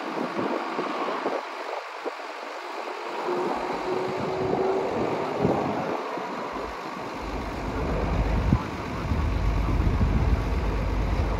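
Steady engine roar, with wind buffeting the microphone in uneven gusts from about seven seconds in.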